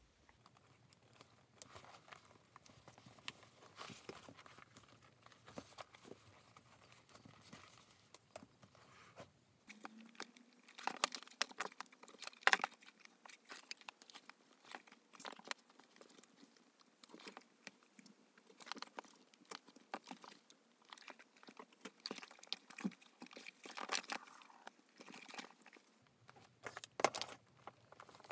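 Leather being hand-stitched: needles pushed through the stitching holes and thread drawn through and pulled tight, giving a faint run of small clicks, scrapes and rustles, the sharpest click a little under halfway through.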